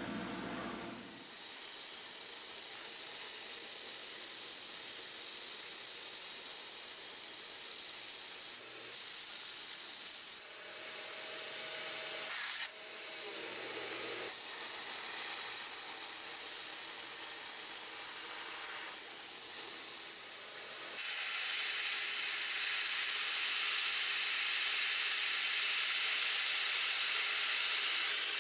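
CNC-converted 9x20 benchtop metal lathe cutting a bearing adapter: a steady hiss of the tool in the cut. The hiss breaks off briefly a few times between about 9 and 13 seconds in and shifts slightly about 21 seconds in.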